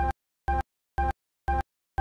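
A short electronic beep repeating evenly about twice a second, with complete silence between beeps.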